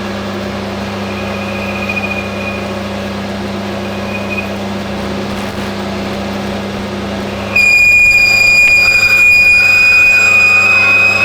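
Hafco AL960B metal lathe running with a steady hum as the tool cuts a taper; brief faint squeals early on, then about two-thirds through a loud, high-pitched squeal of tool chatter sets in and holds. The squeal is put down to too much overhang.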